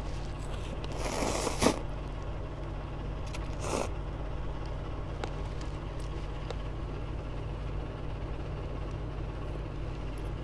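A person slurping cup-ramen noodles from chopsticks: one slurp about a second in, ending in a sharp click, and a shorter one near four seconds, followed by a few faint clicks. A steady low hum runs underneath.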